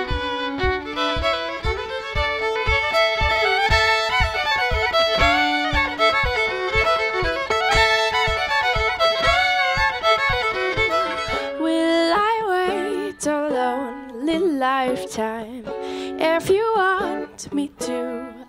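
Twin fiddles play a lively tune in harmony over a steady low pulse. About two-thirds of the way through, the music changes to a woman singing over a plucked mandolin.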